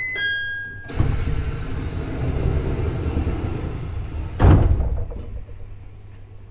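A two-note falling door chime, then the passenger doors of a JR East E721-series electric train sliding with a rush of air for about three seconds and ending in a heavy thud, with the train standing at a station.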